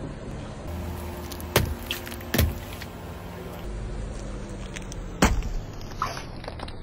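A car tyre rolls slowly over packaged snacks, a small sachet and plastic-wrapped snack sticks, and crushes them. There are about four sharp pops and cracks as the packets burst, over the low steady hum of the car's engine.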